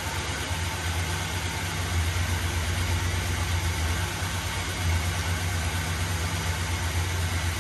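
A 1981 GMC pickup's engine idling steadily, left running while Dexron III is added to its TH350 automatic transmission until the level shows on the dipstick.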